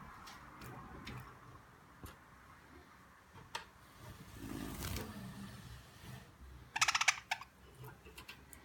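Budgerigar giving one short, harsh buzzy call about seven seconds in, amid scattered light clicks and taps.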